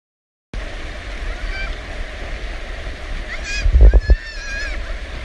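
Floodwater from a seasonal desert torrent rushing steadily, with wind buffeting the microphone in heavy low gusts about three and a half to four seconds in. A few short high calls break through, around one and a half seconds in and again near three and a half to four and a half seconds in.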